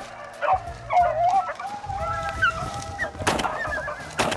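A pack of beagles baying on a rabbit's trail, several wavering voices overlapping. Two short sharp noises come about three and four seconds in.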